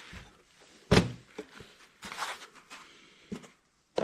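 Handling noises from unpacking a manual coffee grinder and its parts: one sharp knock about a second in, a little rustling and scraping around two seconds, and a couple of light clicks near the end.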